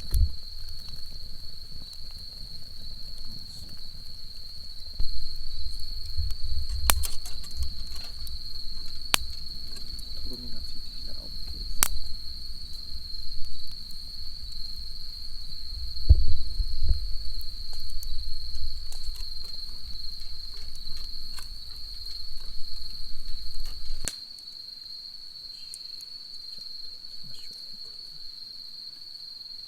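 Night insects trilling steadily on one high note throughout. Under them, until about 24 seconds in, a low rumble with scattered clicks and knocks.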